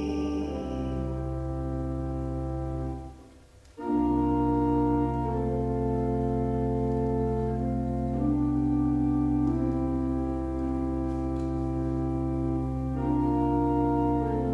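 Pipe organ playing slow held chords over a steady bass note. It breaks off for under a second about three seconds in, then goes on with chords that change every few seconds.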